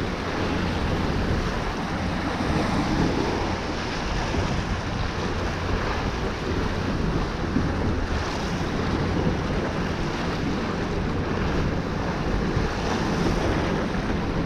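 Wind buffeting the microphone over the steady wash of sea and surf, an even rushing noise with no distinct events.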